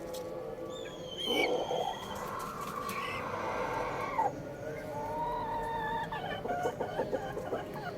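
A rooster crows once: a long, drawn-out call that starts about a second in and cuts off about three seconds later. Chickens cluck in short calls around it.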